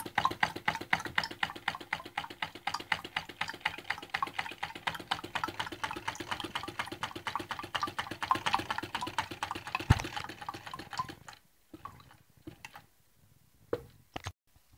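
Homemade tin-can Stirling engine and its water pump running, a rapid, even clicking of the working parts. The clicking stops abruptly about eleven seconds in, leaving a few scattered faint knocks.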